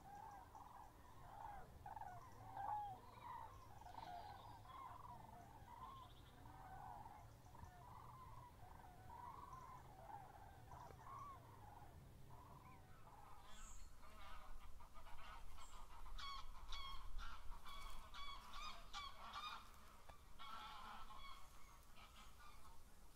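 Faint, distant bird calls: a steady run of short wavering calls, then from about 14 s in louder calls following each other quickly, several a second.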